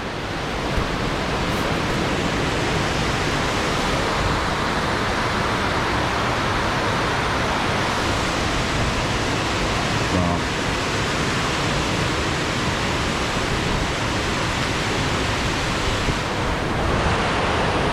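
Fast-flowing water, running high after a storm, makes a steady, even rush.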